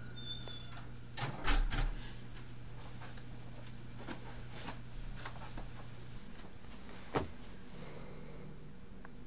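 A dorm room door pushed shut, latching with a thud about a second and a half in. Soft footsteps follow across the carpet, with one sharp knock about seven seconds in, while a steady low hum stops about six seconds in.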